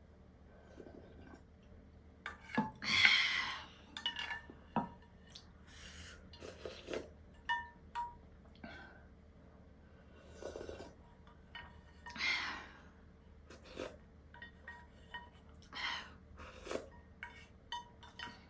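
Eating ramen from a bowl: utensils tap and clink against the bowl with short ringing pings, between noisy bursts of eating sounds. The loudest bursts come about three seconds in and again about twelve seconds in.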